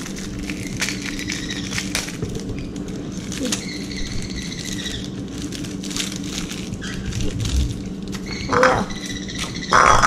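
Light clicks and crinkles of fingers handling and opening a small plastic packet, over a steady low hum. A few thin, high-pitched calls come through about two and four seconds in, and two louder short sounds come near the end.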